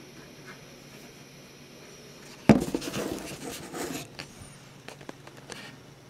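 Handling noise: a sharp knock about two and a half seconds in, followed by a second or so of rustling and clattering, then a few light clicks as equipment is moved around.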